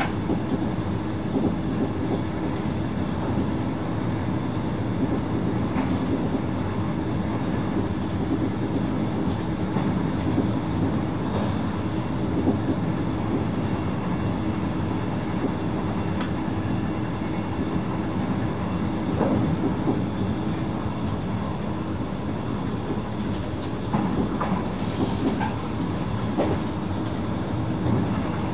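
VIRM double-deck electric train running at speed: steady rolling noise of wheels on rails with a constant hum, and scattered sharp clicks over the track.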